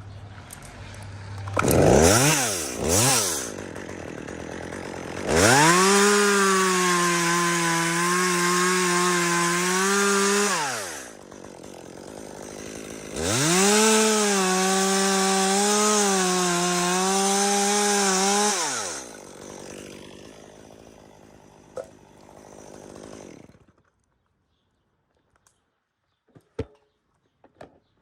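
Chainsaw blipped twice, then held at full throttle for two long runs of about five seconds each, its pitch wavering as it works through the dead aspen wood. It then drops back and dies away before the end.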